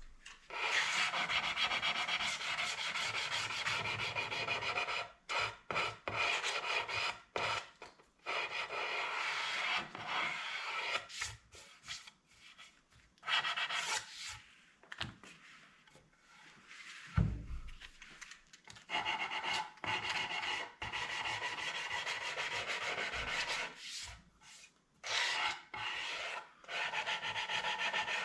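Wood being rasped by hand: long runs of scraping strokes broken by short pauses, with a single knock partway through.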